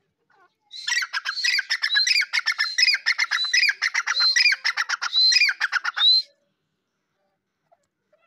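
Grey francolin calling: a loud run of rapid, sharp notes, several a second, repeating rising phrases, that starts about a second in and stops abruptly some five seconds later.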